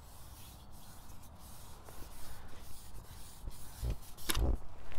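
Rustling handling noise over a low rumble, with two thumps about four seconds in.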